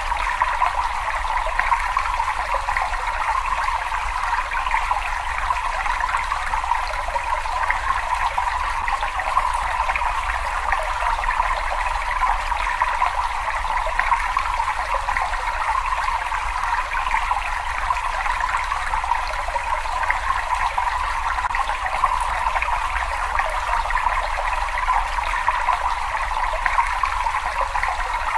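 Water running and trickling in a cave: a steady, unbroken splashing rush with a low rumble underneath.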